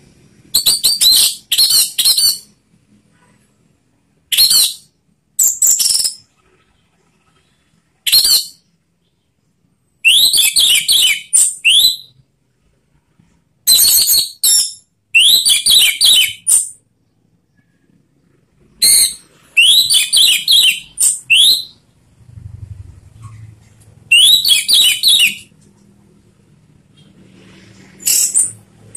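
Orange-headed thrush singing loud, full song: about ten phrases of rapid, sweeping high whistles and trills, each a second or two long, with short silent pauses between them.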